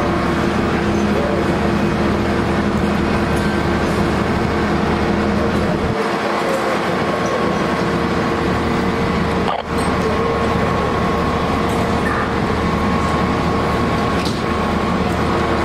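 Diesel engines of fire trucks with their aerial ladders raised, running steadily: a loud, even drone with several steady tones over a low rumble.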